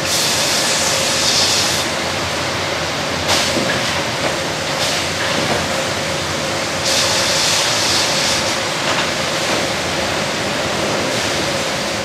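Sawmill band headrig and log carriage running: a steady mechanical din with one constant tone through it. A hissing stretch of about two seconds comes at the start and another about seven seconds in, with a few sharp knocks between them.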